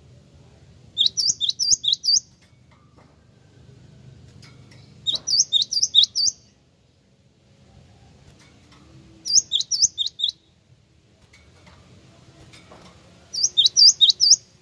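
Cinereous tit (gelatik wingko) singing: four bursts of six or seven sharp, quickly repeated high notes, each burst about a second long, coming about every four seconds.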